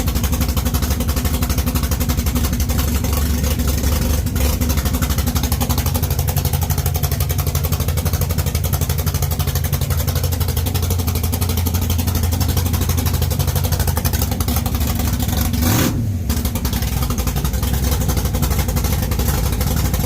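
Engine of a 1969 Camaro drag car running steadily at idle, with one quick rev that rises and falls about 16 seconds in.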